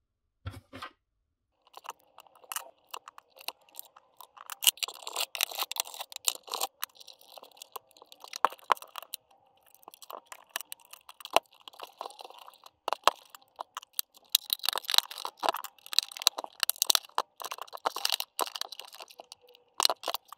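Adhesive rubber feet being peeled off the plastic base of a projector, and a screwdriver working at the plastic case: irregular crackling, tearing and scraping with many sharp clicks.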